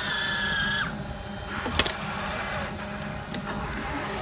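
Small electric winch motor on an RC scale truck whining steadily as it pulls the line, then cutting off suddenly about a second in. A sharp click follows near two seconds in, and a fainter one about a second later.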